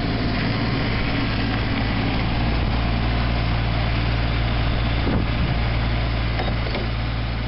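Ford CM224's 24 hp Shibaura three-cylinder diesel engine running steadily as the mower drives up close.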